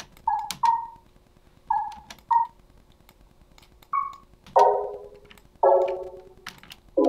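Short bubbly synth pluck notes sounding one at a time as they are clicked into FL Studio's piano roll, each with a quick downward pitch drop at its start. About four and a half seconds in, the notes become fuller chords. Faint mouse clicks come between them.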